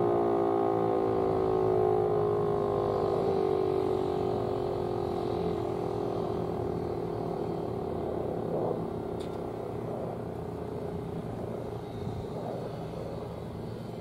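Federal Signal 508 outdoor warning siren winding down at the end of its weekly quiet test: its several tones slowly fall in pitch and fade as the rotor coasts toward a stop.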